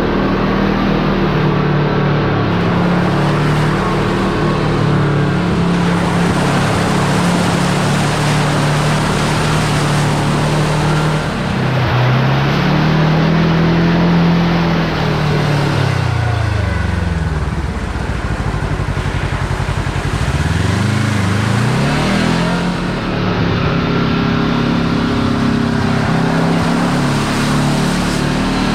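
Kawasaki Teryx KRX4 1000 side-by-side's engine running steadily under way, with a hiss of tyre and trail noise over it. About halfway through the engine eases off and its pitch drops to near idle for a few seconds, then it picks back up.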